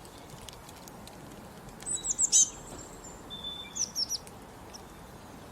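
Songbirds singing: two quick runs of high, falling chirps, about two seconds in and again about four seconds in, with a brief held whistle between them.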